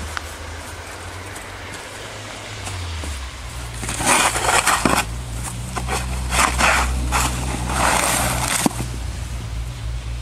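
Plastic snow shovel scraping and pushing snow across stone steps in repeated strokes, the loudest from about four seconds in, over a steady low rumble.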